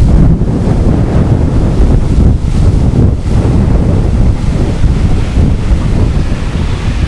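Strong wind buffeting the microphone: a loud, continuous low rumble that swells and dips with the gusts.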